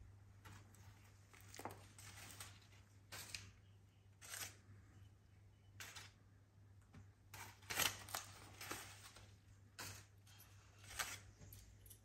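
Black cockatoo chewing and tearing paper with its beak: irregular short crackles and snips, loudest a little after halfway, over a faint steady hum.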